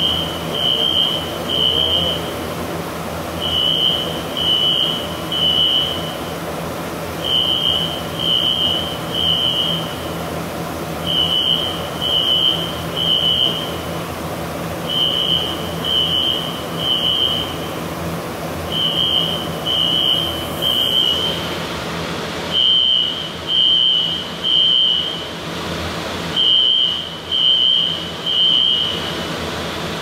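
Hangar fire alarm sounding in groups of three high beeps that repeat about every four seconds, the temporal-three evacuation pattern. Under it runs the steady rush of the high-expansion foam generators discharging, which drops away about two-thirds of the way in while the alarm carries on.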